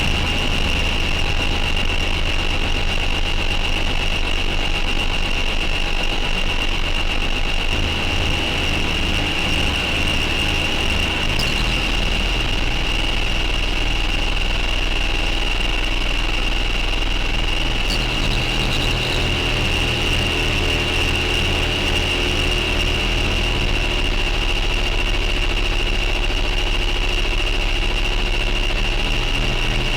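Synthesized drone from an Elektron Digitone FM synthesizer: a steady high whine over a hissy noise bed and low sustained notes that shift pitch every few seconds.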